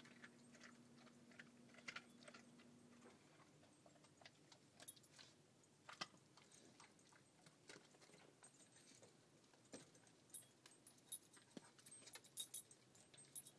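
Near silence, with faint scattered clicks from a dog chewing raw meat and bone. The clicks come a little more often near the end.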